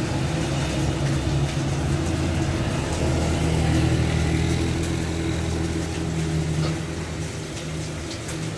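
Tour bus's diesel engine running as it goes by on a steep uphill bend, a steady low drone that grows louder toward the middle and fades near the end.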